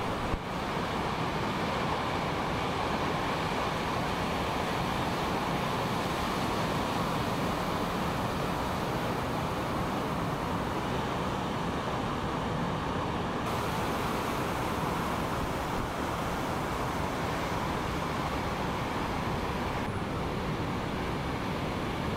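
Steady roar of breaking ocean surf, an even wash of noise without separate crashes.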